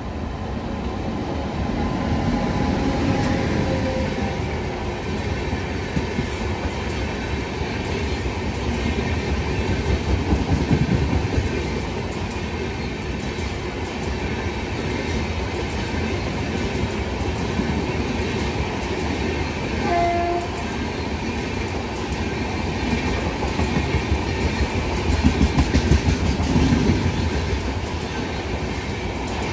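Train passing close by, its coaches rumbling and wheels clattering over the rail joints, with a short horn blast about twenty seconds in.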